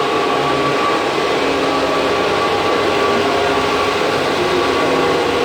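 Cooling fans of a room full of running cryptocurrency mining machines: a loud, steady whir with a constant hum.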